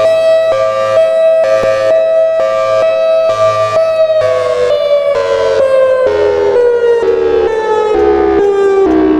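Federal Signal Thunderbolt 1003 civil-defense siren sounding its hi-lo signal, switching back and forth between two pitches. About four seconds in, both pitches begin to fall steadily as the siren winds down.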